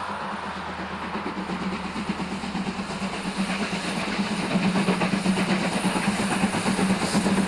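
Steady low hum with a fast rattle over it, growing louder about halfway through.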